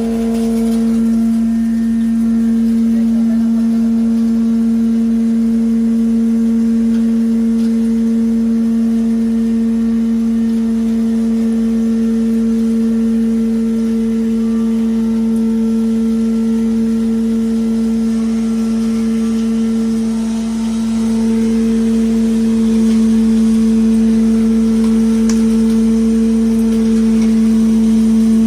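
Wood chipper (wood powder machine) running at steady speed with a loud, even hum, its pitch holding level throughout.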